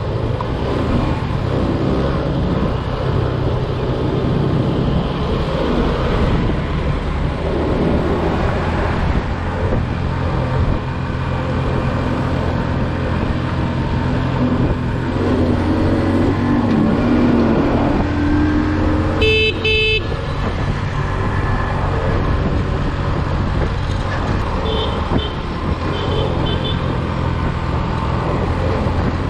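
Motorcycle engine running under way with road and traffic noise. A vehicle horn honks once, for under a second, about two-thirds of the way through, and a few short faint beeps follow a little later.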